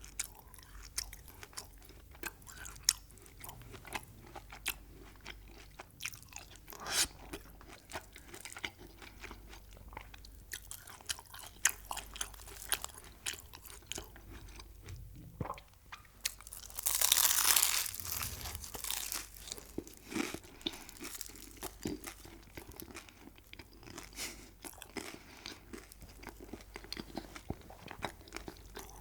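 A person biting and chewing crunchy food: a steady run of small crunches and mouth clicks, with a louder, longer spell of crunching about seventeen seconds in.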